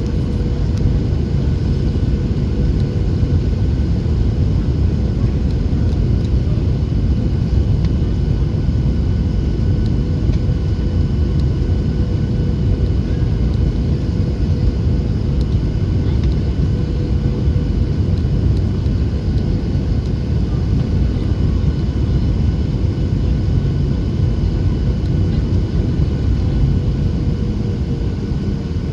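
Cabin noise of a Boeing 737-800 on final approach: the steady roar of its CFM56-7B engines and rushing air, with one steady tone running through it that sags slightly near the end.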